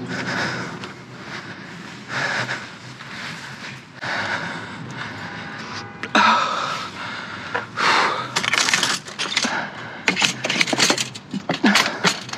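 A person breathing hard in repeated swells, then handling junk: scraping, rustling and a quick run of clattering knocks near the end.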